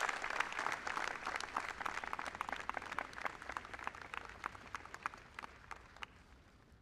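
Crowd applauding, the clapping gradually dying away to a few scattered claps near the end.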